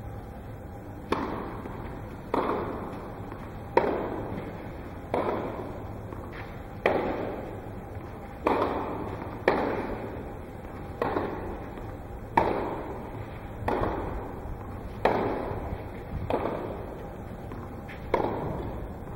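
Tennis balls struck by rackets in a serve and baseline rally on clay, a sharp hit about every second and a half, each with a short echo.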